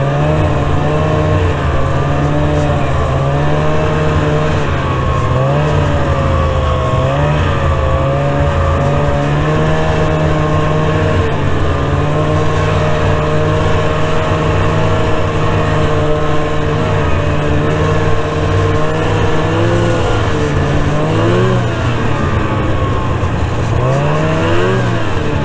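Snowmobile's two-stroke engine running under way, heard from on board, its pitch wavering up and down with the throttle and climbing in two quick revs near the end.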